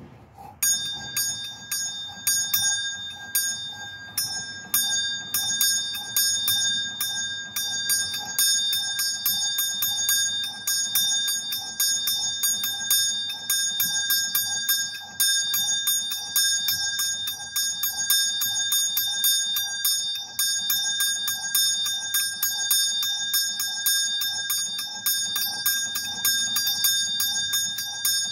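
Small bronze bell being rung, its clapper striking in a fast, even run of several strokes a second. Each stroke adds to a bright, high, steady ring, which starts about half a second in.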